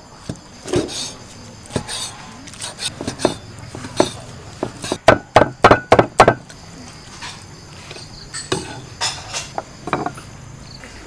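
Cleaver chopping cooked sausage and intestines on a wooden chopping block: scattered single chops, then a quick run of about eight hard chops about five seconds in, and a few more near the end.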